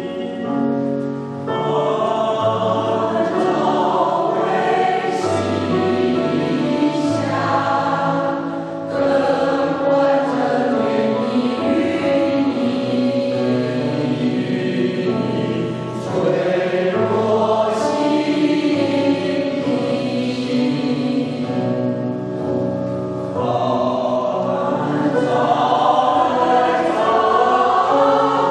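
Mixed choir singing a hymn in a two-part choral arrangement in long, sustained phrases, with piano accompaniment.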